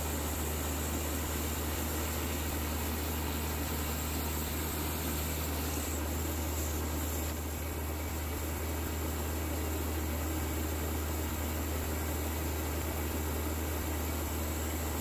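Baker bandsaw mill running steadily: a constant low motor hum under an even hiss as the band blade saws a Douglas fir log into boards.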